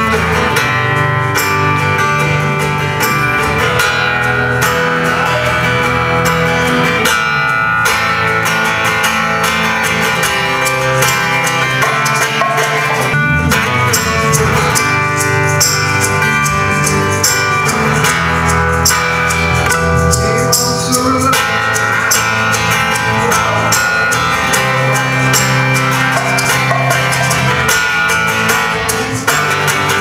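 Rock band playing at a sound check: guitar over a drum kit, loud and continuous.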